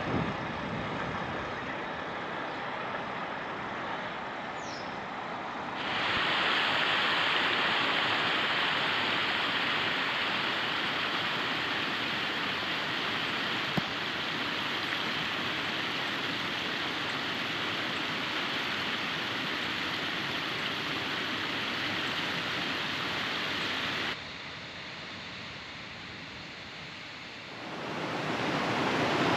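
Rushing river water, a steady hiss of flowing water. It jumps louder about six seconds in, drops sharply near the end and then swells again.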